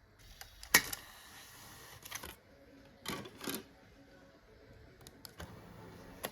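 A series of mechanical clicks from operating a Kenwood KDC-X789 car CD receiver: a sharp click about a second in followed by a short hiss, a pair of clicks around three seconds in, and a few lighter clicks near the end.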